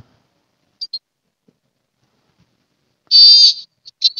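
High-pitched cartoon-style WhatsApp notification ringtone playing from a TikTok video preview: two short blips about a second in, then a loud squeaky call near the end followed by quick chirps.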